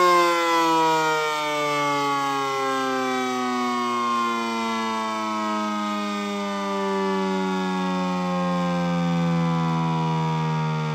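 ACA Cyclone 125 siren winding down, its chord of tones falling slowly and steadily in pitch.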